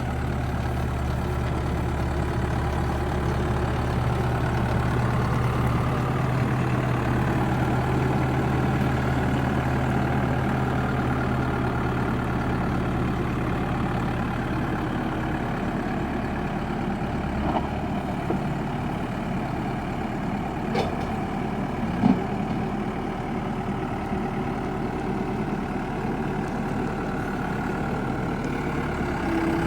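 2001 New Holland backhoe's engine idling steadily, its low hum easing about halfway through. A few short knocks ring out over it, the loudest about two-thirds of the way in.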